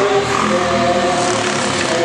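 Mixed choir singing a villancico (Spanish Christmas carol) in several parts, holding sustained chords that step from one to the next.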